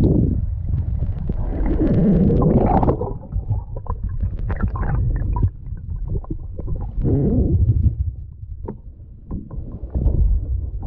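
Underwater sound around a descending freediver: a heavy low rumble of moving water with bubbles churning past, loudest in the first three seconds, then scattered sharp clicks.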